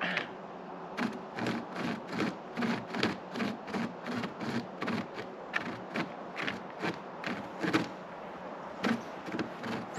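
Hand chain saw (a chain with rope handles) pulled back and forth through a tree branch, a steady run of rasping strokes about two or three a second.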